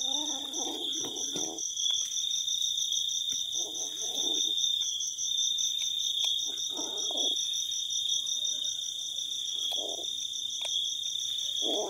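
Insects chirring steadily: one high, even tone and a second, higher rapid pulsing trill over it. A few short, duller sounds of about a second each come and go, around the start, about four seconds in, about seven seconds in and near ten seconds.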